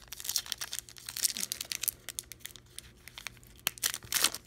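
Foil wrapper of a trading-card pack being peeled and torn open by hand, crinkling and crackling in irregular bursts.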